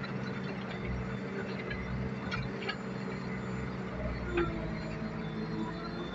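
JCB backhoe loader's diesel engine running steadily under hydraulic load as the backhoe arm digs, with a few short knocks.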